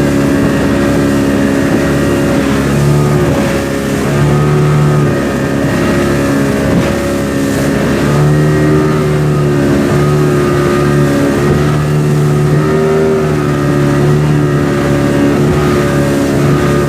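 Motorboat engine running steadily at cruising speed, a loud drone whose pitch wavers slightly.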